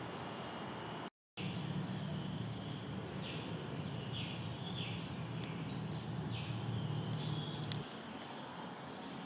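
Garden birds calling: a run of short, high notes, several sliding downward, starting about three seconds in and fading out near the end, over a steady low hum that stops shortly before the end. A brief complete dropout comes about a second in.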